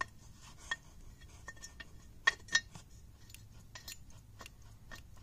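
Light metallic clicks and clinks from the steel clutch release fork being moved on its pivot ball in the transmission bell housing. The loudest is a quick pair of clicks about two and a half seconds in.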